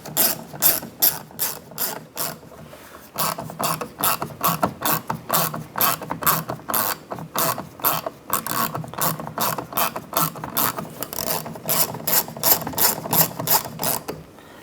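Hand ratchet with a T20 socket clicking steadily, about three to four clicks a second with a brief pause about two seconds in, as it tightens the door handle's retaining screw.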